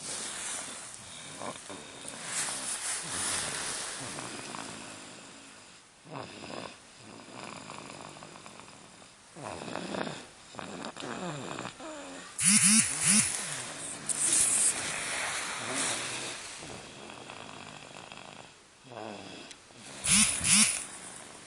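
A baby snoring in her sleep: a series of irregular, noisy breaths every few seconds, the loudest snorts coming just past halfway and again near the end.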